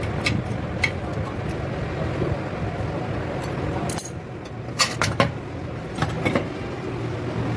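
Metal parts and tools clinking a few times, two light clicks in the first second and a louder cluster about four to six seconds in, over a steady low hum.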